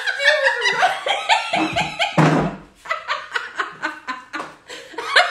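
Two women laughing hard together, in quick, repeated bursts of open-mouthed laughter.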